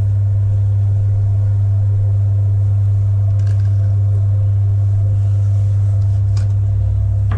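Electric potter's wheel motor running with a steady low hum, with a couple of faint clicks.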